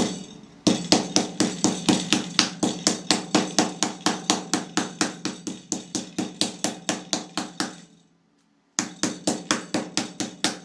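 Wooden meat mallet pounding slices of beef on a cutting board to tenderize them, quick even blows about four or five a second. The blows stop for under a second near the end, then start again.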